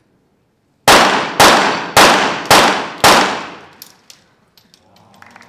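Five .22 Short rapid-fire pistol shots, evenly spaced about half a second apart, each ringing off in a fading echo: one complete five-shot rapid fire series.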